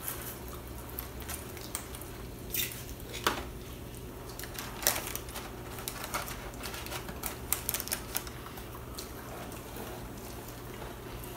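Eating sounds of people chewing chicken wings: irregular sharp clicks and wet smacks, thickest in the middle, over a steady low hum.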